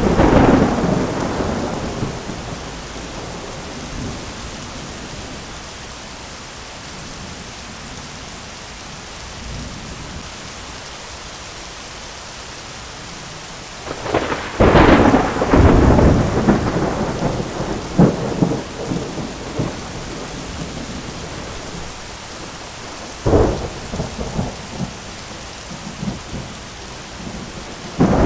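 Thunderstorm: steady rain with claps of thunder. One peal fades over the first couple of seconds, a loud crack rolls on for several seconds about halfway through, and shorter claps come near the end and again right at the end.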